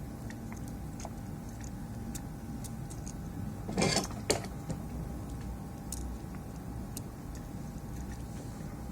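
Light clicks and taps of small tools and plastic controller parts being handled over a steady low hum, with a brief scraping rustle about four seconds in and a sharp click just after it.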